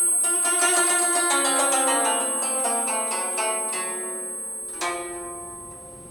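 Film score music: a quick run of plucked string notes, with one sharper plucked note a little before the five-second mark and the music then fading away. A steady high-pitched ringing tone is held beneath it and stops near the end.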